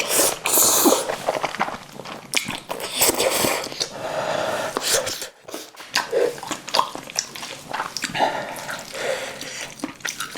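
Close-miked eating sounds: wet chewing and lip smacking, with many short clicks and several airy slurping or sucking stretches.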